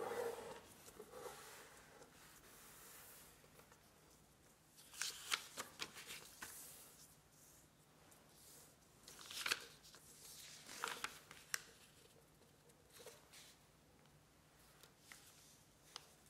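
A square sheet of origami paper being handled and folded on a wooden tabletop: soft rustling and sliding, with several short, crisp swishes as fingers run along the folds to crease them. The loudest swishes come about five and nine and a half seconds in.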